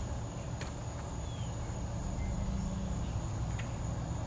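Outdoor ambience: a steady low motor hum runs under a continuous high-pitched insect drone, with a couple of brief chirps and faint clicks.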